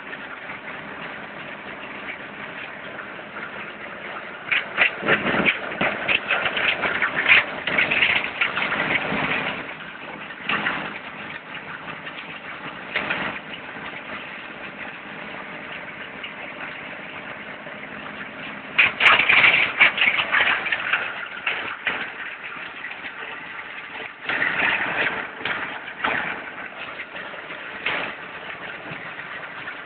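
Engine-driven plastic grinder running steadily, with repeated bursts of loud, irregular chopping as plastic is fed in and cut into flakes, the louder spells lasting a few seconds each.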